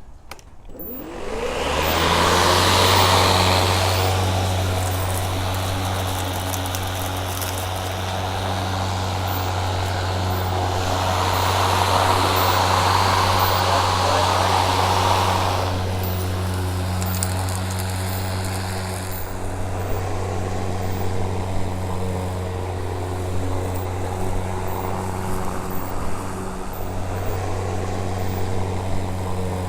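EGO 56V 21-inch cordless battery lawn mower starting up: the blade motor spins up about a second in and settles into a steady hum. Over the hum comes a rushing as it cuts grass, louder twice.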